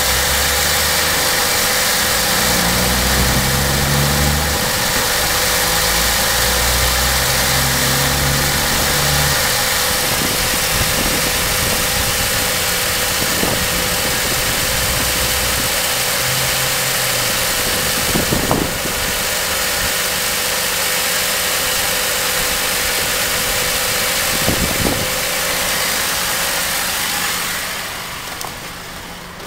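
2009 Holden Commodore's 3.6-litre V6 idling steadily under the open bonnet. It grows fainter near the end.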